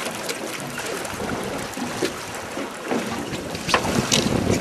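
Hooked yellowtail kingfish splashing at the water's surface beside a boat as it is hauled aboard, with wind noise on the microphone. Sharper splashes and knocks come near the end.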